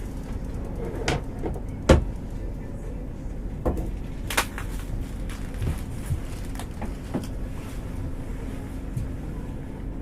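Scattered knocks and clunks of gear on a fishing boat over a steady low hum, the sharpest knock about two seconds in.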